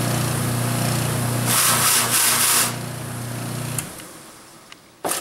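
Flap-sander wheel (sandpaper strips backed by wire brushes) spinning on a bench electric motor: a steady motor hum under the whirring, slapping noise of the strips, with a louder, harsher stretch lasting about a second near the middle. The motor is switched off near four seconds in and the wheel whirs down, followed by a sharp click near the end.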